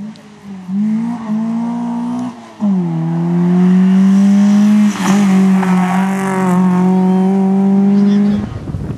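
Rally hatchback's engine revving hard as the car accelerates flat out, with a gear change about two and a half seconds in, then held at high revs. The engine sound cuts off abruptly near the end.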